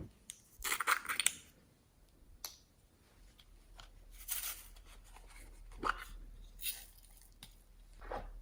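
Hands squishing and stretching glossy slime: irregular sticky crackles and pops, the loudest cluster about a second in.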